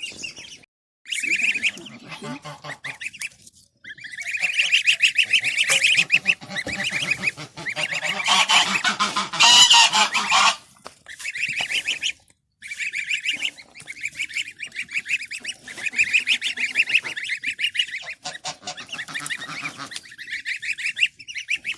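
A flock of domestic geese and ducks calling: mostly goose honks in quick runs of short calls, coming in several spells with brief pauses, loudest around the middle.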